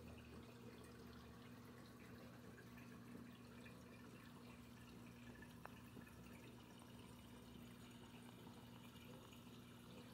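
Faint reef aquarium running: a steady low hum from its pump, with water trickling and dripping.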